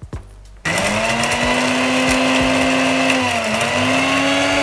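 Indian mixer grinder (mixie) switched on about half a second in, dry-grinding roasted split gram into powder in its stainless steel jar: a steady motor whine with the dry pieces ticking against the jar. The pitch dips briefly about three seconds in and then recovers.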